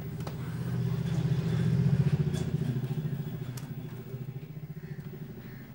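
A small engine goes by: a fast, pulsing buzz swells to its loudest about two seconds in, then fades away.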